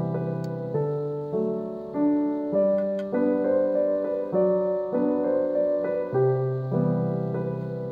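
Background piano music: a gentle melody over chords, with new notes struck at an even pace about every half second.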